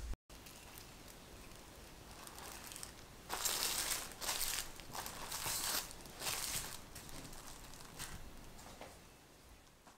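Plastic cling film crinkling as it is stretched over a cake pan and pressed around its sides, in several loud rustling bursts from about three seconds in that fade toward the end.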